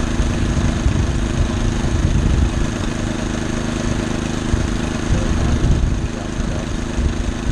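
Small gasoline engine of a homemade rail cart running steadily at a constant speed, over the low rumble of its wheels rolling on the rails.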